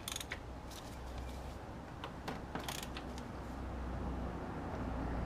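A few sharp clicks from a socket ratchet turning a 24mm deep socket as it nips up an oil pressure switch: a couple near the start and a few more between about two and three seconds in, over a low rumble.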